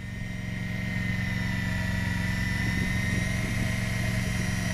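Electric fishing reel motor winding in line after a hookup: a steady high whine that builds up over the first second and then holds, over a low steady hum.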